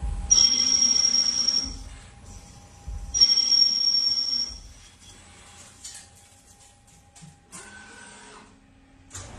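CNC lathe cutting a screw thread on a steel workpiece: two threading passes, each about a second and a half long with a high steady whine, the first just after the start and the second about three seconds in. Quieter machine running with a few light clicks follows.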